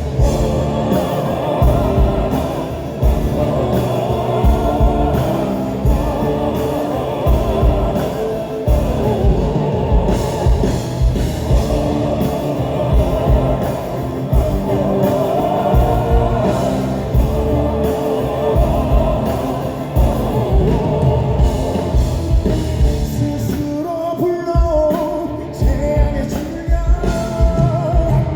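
Male vocal quartet singing a rock song live over a loud band with heavy drums and bass, recorded from the audience.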